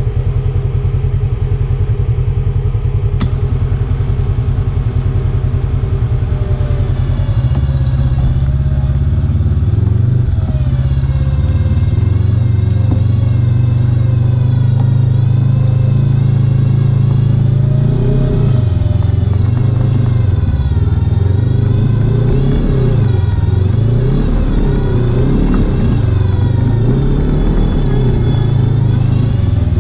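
Side-by-side UTV engine running close by: steady at first, a little higher from about seven seconds in, then revved up and down again and again, roughly every two seconds, through the second half.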